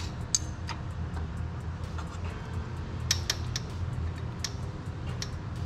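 A few scattered, sharp metallic clicks from a wrench working the belt tensioner bolt loose, with a quick cluster of them about three seconds in, over a steady low hum.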